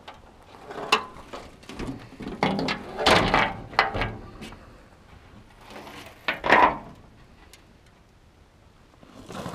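Irregular crunches and knocks, loudest about a second in, in the middle and again around six seconds in: footsteps on gravel and handling of the handheld camera.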